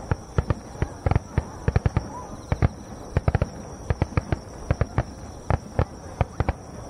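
Aerial firework shells bursting in a rapid barrage (a star mine), sharp bangs coming several a second at uneven spacing.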